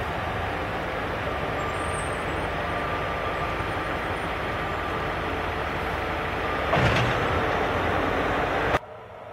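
ÖBB class 2070 diesel-hydraulic shunting locomotive running steadily as it moves past with a coach in tow, with a brief louder burst of noise about seven seconds in. The sound drops away abruptly near the end.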